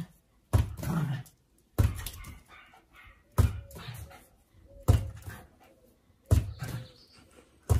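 A small dog barking, about six sharp barks evenly spaced roughly a second and a half apart.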